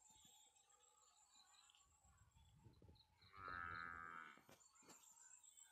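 A single moo from a farm animal, one call about a second long midway through, over a faint steady high-pitched drone.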